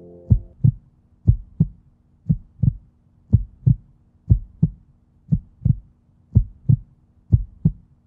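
Heartbeat sound effect: steady paired low thumps, lub-dub, about one beat a second. A low held drone underneath stops about half a second in.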